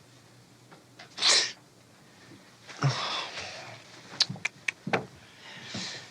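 A person's sharp, noisy burst of breath about a second in, then softer breathy sounds and a few light clicks.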